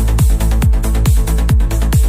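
Electronic dance music with a fast, steady kick drum over a sustained bass and held synth chords.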